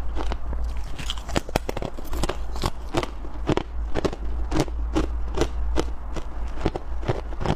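Freezer frost and soft ice being bitten and chewed close to the microphone: a steady run of crisp crunches, about two to three a second, over a constant low hum.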